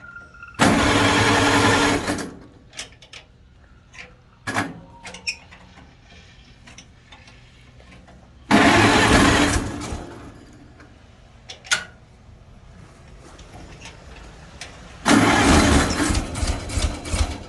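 A 1955 Farmall Cub's four-cylinder gasoline engine cranked by its electric starter in three tries of about two seconds each, turning over but not catching: a no-start that the owner takes as the call for a tune-up.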